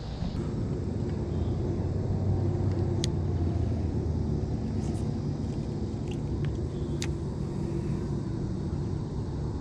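Steady low rumble with a faint motor-like hum, as of an engine running nearby, broken by two sharp clicks about three and seven seconds in.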